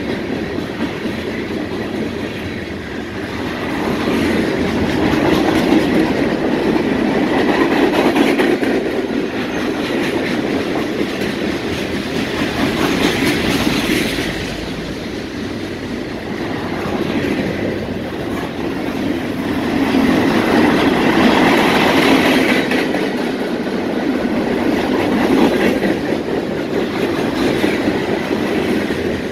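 Freight train cars, covered hoppers and lumber flatcars, rolling past close by: a continuous rumble and clatter of steel wheels on rail, swelling louder and easing off every few seconds as the cars go by.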